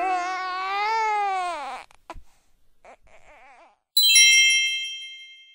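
A cartoon baby's cry, one wail rising and then falling away over about two seconds, followed by softer wavering baby sounds. About four seconds in, a bright bell-like chime strikes once and rings out, fading.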